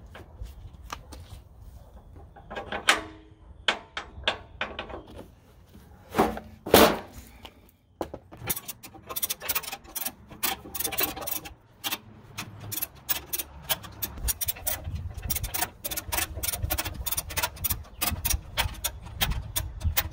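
Blue ratchet tie-down strap being threaded over a tyre and cranked tight: the webbing rubs and is tugged, with a few sharp louder pulls. From about eight seconds in come quick runs of ratchet clicks as the strap is tightened.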